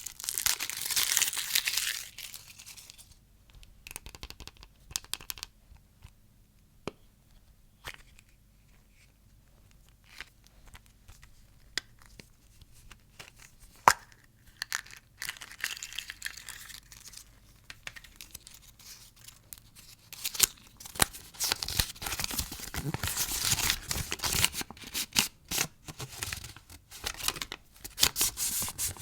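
Candy packaging being torn open and crinkled by hand. A rush of rustling at the start gives way to scattered light clicks and taps, then dense crinkling returns from about twenty seconds in.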